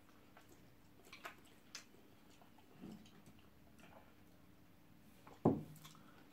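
Quiet eating sounds of people eating with their hands: faint mouth clicks and smacks, then one short vocal sound, falling in pitch, about five and a half seconds in.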